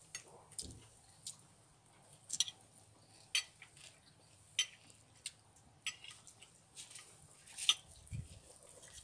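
Quiet eating sounds at a table: scattered small clicks and taps as food and dishes are handled, irregular and a second or so apart, with a soft low thud near the end.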